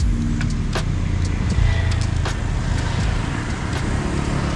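Steady low rumble of motor vehicles, with a few short clicks.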